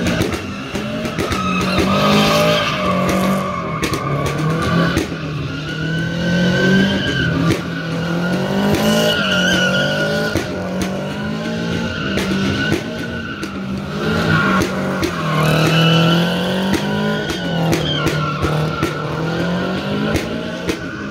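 Car doing donuts on asphalt: tyres squealing without a break while the engine revs rise and fall in waves every few seconds.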